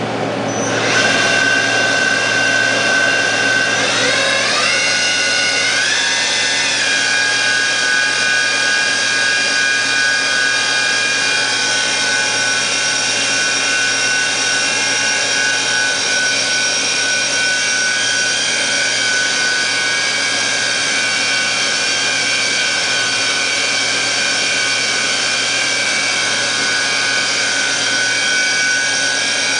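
Dah Lih DL-MCV1020B CNC vertical machining center's spindle starting up about a second in, its whine rising in two steps a few seconds later and then holding steady at speed.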